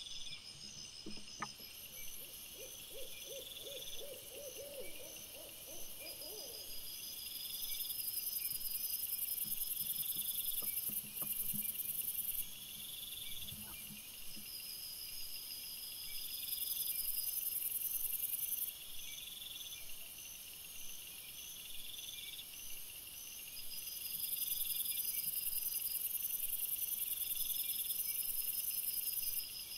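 A chorus of night insects, crickets and bush-crickets, chirping in steady pulsing trains that swell and fade in overlapping layers. About two seconds in, a low, rapidly pulsed call runs for around four seconds.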